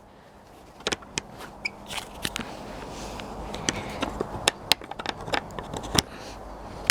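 Irregular clicks, knocks and scraping over a rustling noise that grows louder, with a sharp knock near the end.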